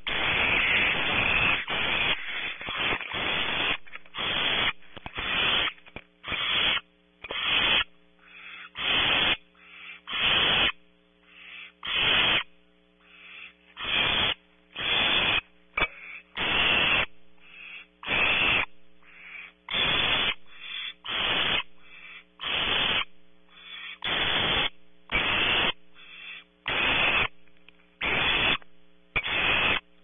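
Barn owl owlet hissing in a long series of harsh, rasping calls, one or two a second, protesting at an intruding owl outside the nest. Behind the calls runs a steady electrical hum.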